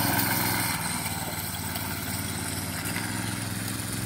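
Go-kart's small gasoline engine running steadily as the kart drives across grass, growing slightly fainter about a second in as it moves away.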